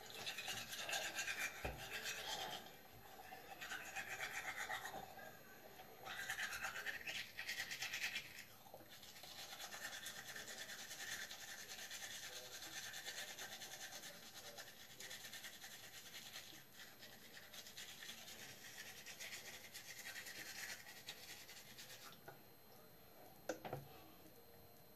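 Manual toothbrush scrubbing teeth, a quiet, scratchy brushing that comes in short spells at first, then runs steadily until it stops about three seconds before the end. A single sharp click follows near the end.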